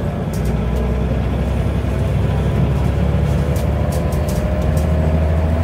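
Scania DC9 9-litre five-cylinder diesel of a Scania Omnicity bus pulling steadily, with the ZF Ecomat five-speed automatic gearbox whining in a tone that rises slowly as the bus gathers speed, heard from inside the saloon.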